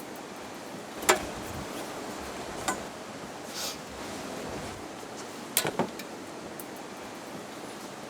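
A few sharp clicks and knocks over a steady hiss, as the rear air strut is removed from the SUV: one loud knock about a second in, a lighter one near three seconds, a short hiss, then a quick cluster of knocks a little past halfway.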